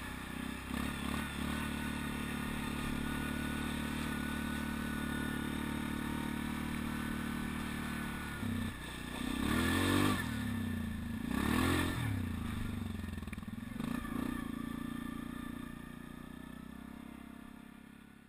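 Yamaha Grizzly 550 ATV's single-cylinder four-stroke engine running at a steady pace, then revved up and down hard twice in quick succession past the middle and once more shortly after. The sound fades out near the end.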